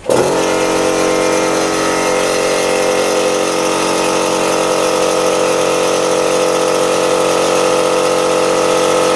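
A small 2 horsepower direct-drive air compressor switched on, starting suddenly and then running loud and steady.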